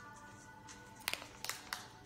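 Background music with steady held notes, and a few sharp clicks in quick succession about a second in.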